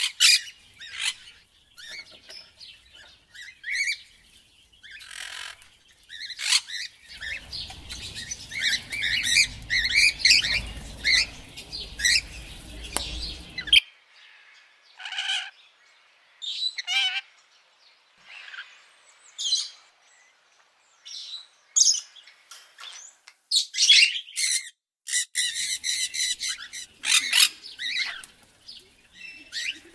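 Parrots squawking and chirping in many short, high calls. A low rumble runs underneath for several seconds in the middle and cuts off suddenly.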